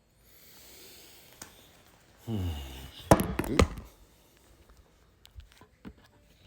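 A man's sudden wordless vocal outburst. A short voiced sound falling in pitch is followed, about three seconds in, by a loud cluster of sharp, explosive bursts of breath.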